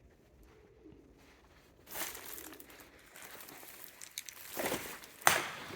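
Quiet at first, then from about two seconds in a crinkling, crunching rustle with a few clicks, ending in a sharp knock near the end.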